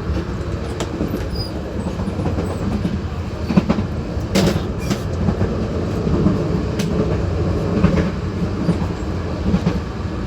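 Running noise in the gangway between two carriages of a Taiwan Railways local train: a steady low rumble with wheels clacking over the rails and irregular sharp knocks and rattles from the carriage connection, the loudest about four and a half seconds in.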